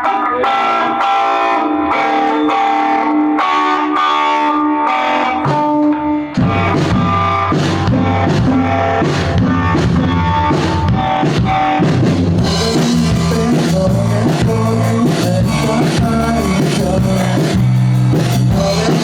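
A rock band playing live: a guitar picks a melody alone, then about six seconds in bass and drum kit come in with the full band, and the cymbals get brighter about twelve seconds in.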